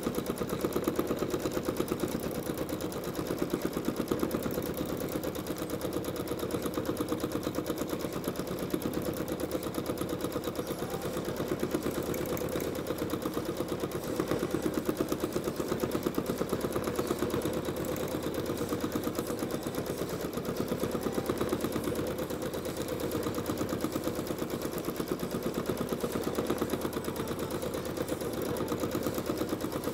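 Janome Skyline S9 sewing machine stitching free-motion with a spring-loaded darning foot, needle going up and down in a rapid, even rhythm without a break.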